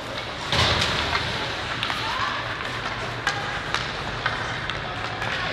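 Youth ice hockey game on a rink: skates scraping the ice, with a loud scrape about half a second in, and sharp clacks of sticks and puck scattered throughout. Faint voices sound in the background.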